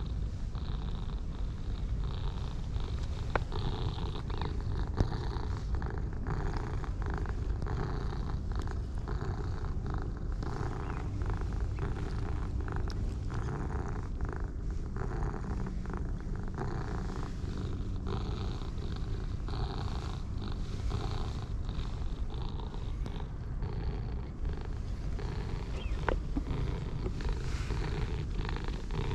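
Close-up purring of orange tabby cats being stroked by hand, a steady purr that runs on throughout: the cats are content under the petting.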